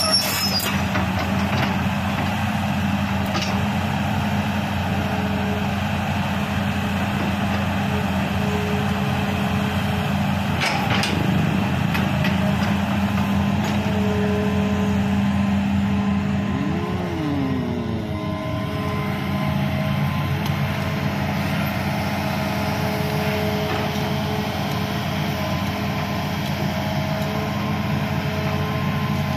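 Hitachi Zaxis hydraulic excavator's diesel engine running steadily as it digs the ditch. There is a single knock about eleven seconds in, and the engine note slides lower about seventeen seconds in.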